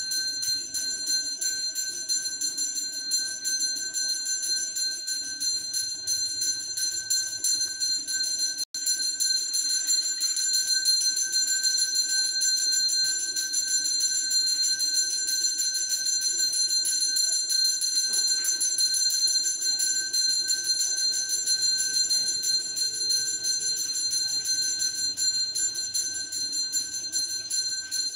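Temple bells ringing in a fast, unbroken jangle during the puja, the sound cutting out for an instant about nine seconds in.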